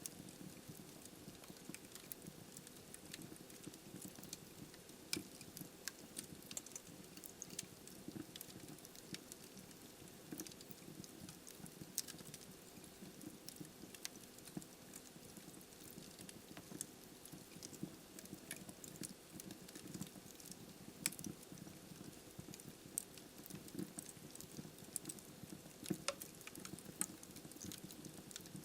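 Wood fire crackling: frequent irregular snaps and pops from burning logs over a soft, steady low rustle, with a few sharper pops now and then.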